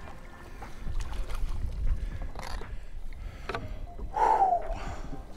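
A mahi-mahi being netted beside a fishing kayak and hauled aboard: water sloshing and wind rumbling on the microphone, with a few knocks of the landing net against the hull. A short falling tone about four seconds in is the loudest sound.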